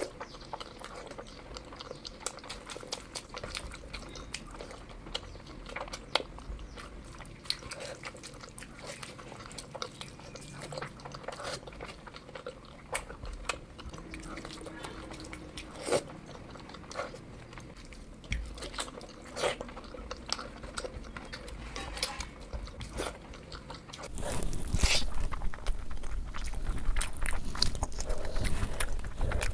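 A person eating close to the microphone: chewing and biting with many short wet mouth clicks, growing louder and noisier near the end.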